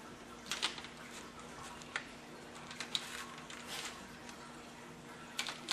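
Hands working a smoked redfish on crumpled aluminium foil, pulling out its bones: scattered soft crinkles and clicks a few times over a faint steady hum.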